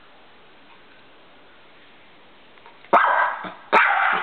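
Two sharp dog barks less than a second apart, coming after about three seconds of quiet room background.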